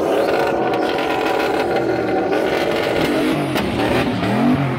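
A performance car's engine revving hard, held high at first, then blipped up and down several times near the end.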